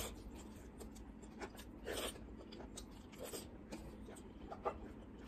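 Eating rice by hand from a steel plate: fingers scraping and gathering rice on the metal, with wet chewing and mouth sounds in between and a few sharper clicks.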